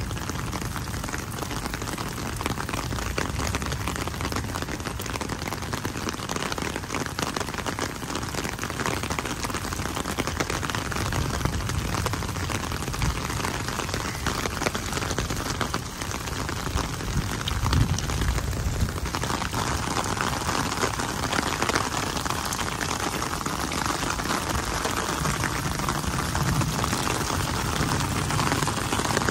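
Heavy rain falling steadily on wet pavement and puddles, a dense patter of drops. About two-thirds of the way through the hiss grows a little brighter and louder.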